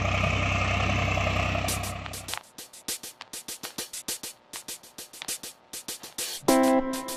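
A tractor engine idling steadily, fading out about two seconds in. Then a quick, even ticking, and near the end a plucked-guitar music chord starts and repeats.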